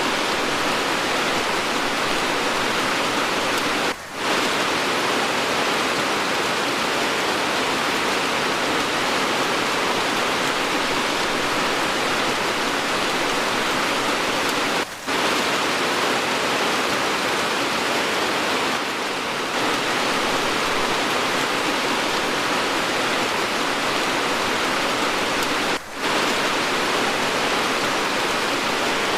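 Steady, dense hiss of heavy rain, an edited rain recording. It drops out briefly three times, about every eleven seconds.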